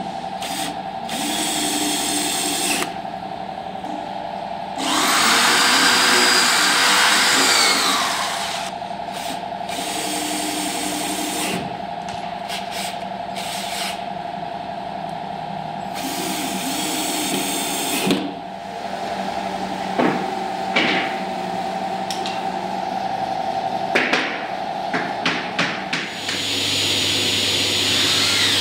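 Cordless drill-driver driving screws into a white wooden panel in several runs, the loudest lasting about three seconds some five seconds in. Sharp clicks and knocks come between runs.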